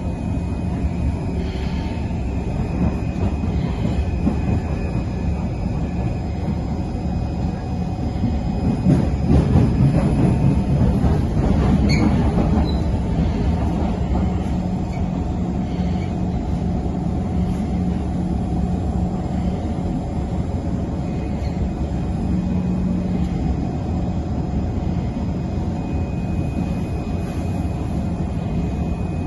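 Inside a moving SMRT Kawasaki C151 metro train: steady running rumble of wheels on the track with a few steady hum tones. It grows louder for a few seconds near the middle, with a brief sharp sound at the end of that stretch.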